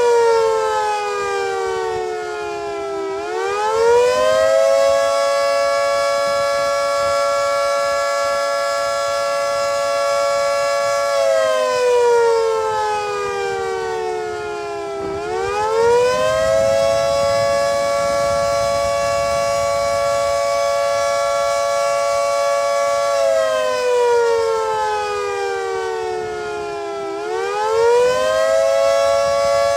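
Federal Signal 3T22A three-tone outdoor warning siren sounding the attack signal during a test: a loud chord that winds down in pitch, climbs back up within a couple of seconds, holds steady for several seconds, and falls again. The dip-and-rise comes three times.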